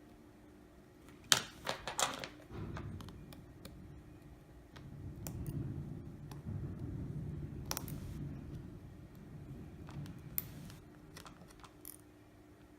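Small sharp clicks and taps of hand tools and small phone parts being handled, a quick cluster of them a second or two in, then a few scattered ones over a low rumble of handling noise.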